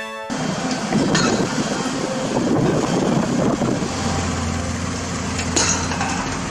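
Concrete mixer truck running, a loud steady rumbling noise over a low engine hum, after a brief pitched tone at the very start.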